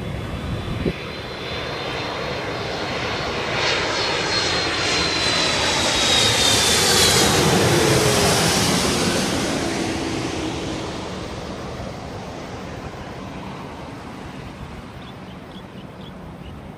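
Jet airliner passing overhead: the whine and roar of its engines build to a peak about seven seconds in, slide down in pitch as it goes by, then fade away.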